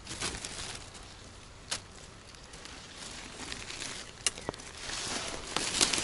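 Leaves and branches of dense thorny brush rustling and crackling as someone pushes through it on foot, with a sharp twig snap about two seconds in. The rustling grows louder near the end.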